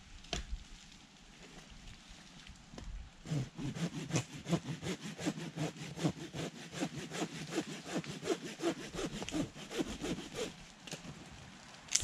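Rapid rhythmic scraping strokes, about five a second, start about three seconds in and stop about ten and a half seconds in, with a few separate knocks before them.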